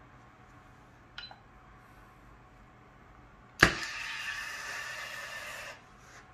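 A sharp click, then a thin jet of alcohol from a 1.4 mm needle, driven by a metering pump, hissing into a plastic beaker for about two seconds before cutting off sharply as the 20 ml dose ends.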